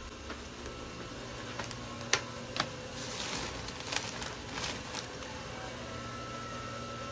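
Crinkling of a bouquet's plastic wrapping and a few light knocks as it is handled and set down, over a low steady hum.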